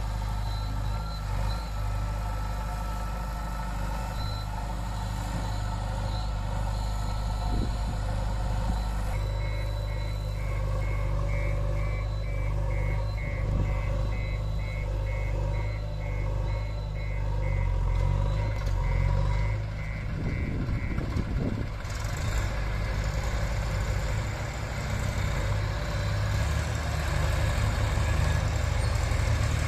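Diesel engine of a JCB 3DX backhoe loader running steadily, with its reversing alarm beeping repeatedly for about ten seconds in the middle.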